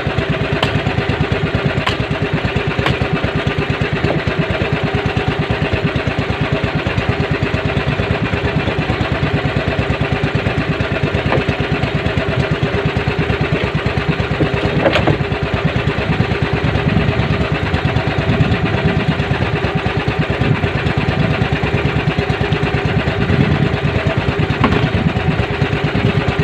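Outrigger fishing boat's engine running steadily at an even, unchanging speed, with a few short clicks over it.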